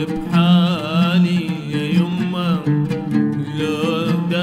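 A man singing a wavering, ornamented Arabic melody on drawn-out vowels, accompanied by an oud.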